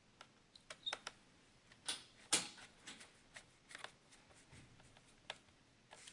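Plastic memory-compartment cover of a Dell Inspiron 6000 laptop being fitted back onto the base: scattered light plastic clicks and taps, the loudest a little after two seconds in.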